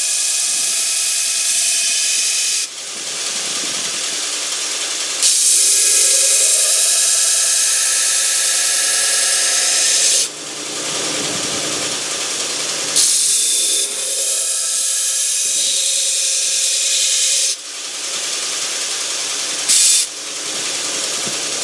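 Belt sander running with a coarse 36-grit belt, grinding a steel knife blade. There are four passes: a louder grinding hiss each time the blade is pressed to the belt, one long pass of about five seconds and two short ones near the end. Between passes the machine drops back to its steady running whine.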